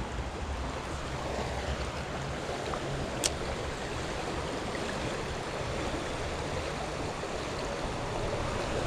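Creek water running in a steady rush, with a single sharp click about three seconds in.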